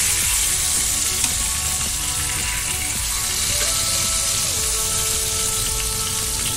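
Ribeye steak sizzling in hot oil and pan sauce in a frying pan, held on its edge with tongs to sear the side of the meat; a steady, even hiss.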